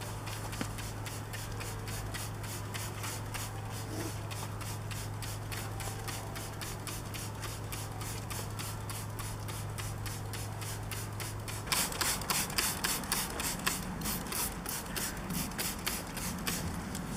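A brush scrubbing a surface in quick back-and-forth strokes, a few strokes a second. The strokes are faint over a steady low hum at first, then about two-thirds of the way in the hum drops out and the scrubbing becomes loud and close.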